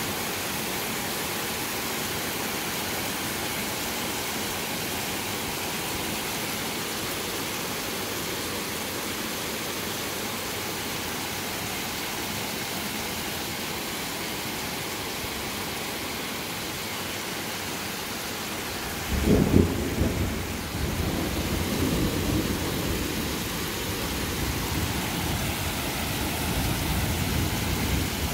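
Heavy rain falling with a steady hiss. About two-thirds of the way in, a sudden loud clap of thunder breaks and rolls on as a deep rumble under the rain.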